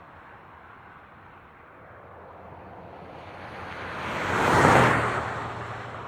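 Highway traffic: a steady wash of tyre and engine noise, with one vehicle passing close by. Its sound builds over a couple of seconds, peaks loudly a little before the end, then fades, leaving a low engine hum behind.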